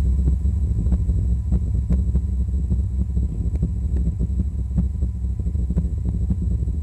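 Steady low-pitched rumbling hum with faint scattered clicks, which the uploader takes for the mysterious worldwide "Hum" (Taos hum).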